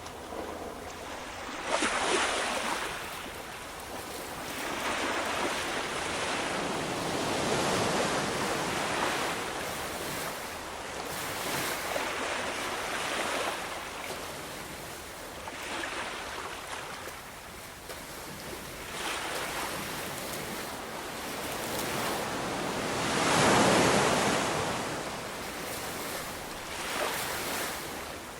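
Ocean waves breaking and washing on the shore, a hiss that swells and falls every few seconds, the biggest surge a little past the middle. Some wind noise mixes in.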